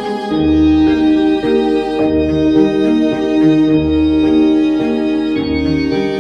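Instrumental music: held chords over a low bass line that steps to a new note about once a second.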